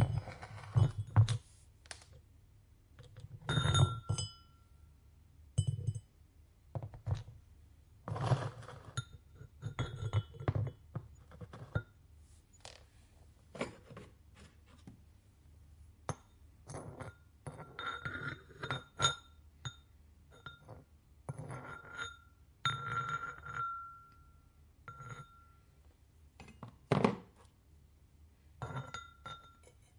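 Pottery pieces and tools clinking and knocking against each other and a work surface: an irregular string of knocks and thuds, some leaving a short ring.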